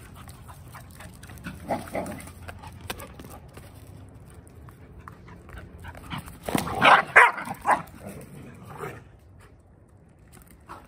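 Small dogs barking and yipping while they play chase, with a burst of sharp, loud barks about seven seconds in and a shorter one near two seconds.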